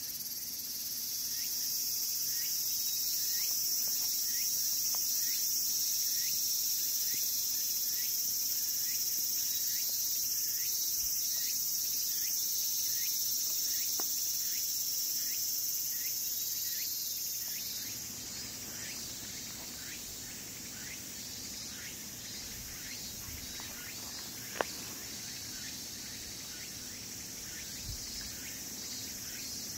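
A chorus of insects buzzing in a steady, shrill high drone, with a short falling call repeating about twice a second over it. The drone eases somewhat past the middle, and there is a single sharp click near the end.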